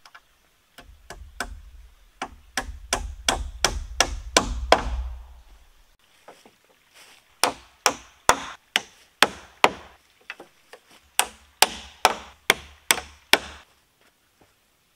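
Hammer driving nails through a metal angle bracket into a wooden post, in two runs of steady blows a few a second, with a pause of about two seconds in the middle.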